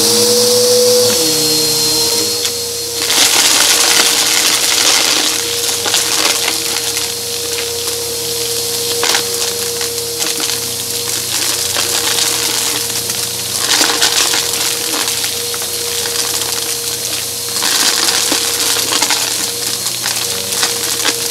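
Bissell upright vacuum with a brushroll, heard up close through a microphone mounted on it. Its motor spins up to a steady whine, and from about three seconds in, coins and pebbles picked up off shag carpet rattle and crackle through the nozzle and into the bin.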